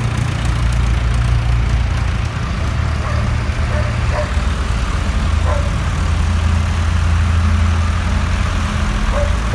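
Diesel engines of vintage tractors running as they drive past one after another. The low, steady engine note changes about a third of the way in, and again past halfway, as a different tractor comes by.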